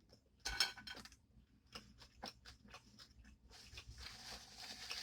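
Faint close-up eating sounds of a big turkey sub: a bite about half a second in, then scattered chewing clicks and mouth smacks.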